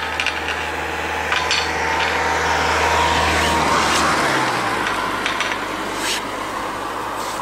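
Car engine running steadily, heard from inside the car, with rubbing and handling noise; the low engine note drops about four and a half seconds in.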